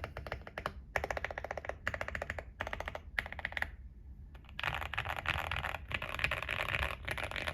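Typing on a QK65 mechanical keyboard with stock Gateron Oil King linear switches on an FR4 plate: quick runs of keystrokes in short bursts, a brief pause, then from about four and a half seconds in a denser, continuous clatter of keys.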